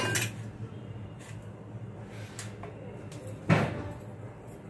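A steel plate knocking against a stone kitchen counter as it is handled: a short clink right at the start and one louder knock about three and a half seconds in, over a low steady hum.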